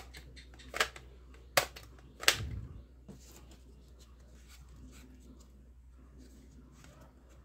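Plastic clicks of a toy foam-dart blaster being handled: four sharp clicks in the first two and a half seconds, the last with a short dull knock. Then faint small clicks and rubbing as foam darts are pushed into its barrels.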